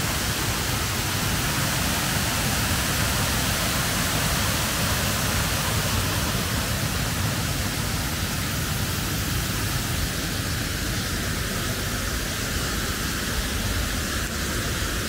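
Waterfall rushing, a steady loud roar of falling water.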